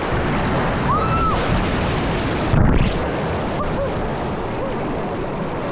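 Rushing whitewater and splashing around a kayak running a rapid, with a louder, muffled splash about halfway through.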